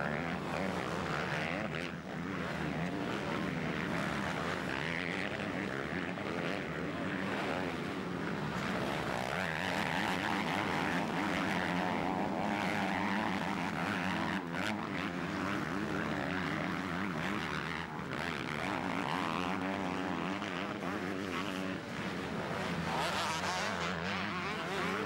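Several motocross bikes' engines revving up and down as they race on a dirt track, running steadily throughout.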